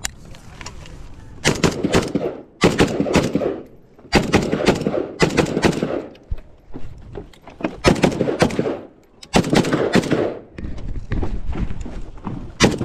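AK-pattern rifle firing rapid shots in several quick strings, with pauses of about a second between the strings.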